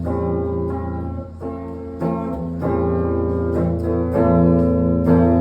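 Instrumental passage of a live song: a guitar playing sustained chords that change about every second, with no singing.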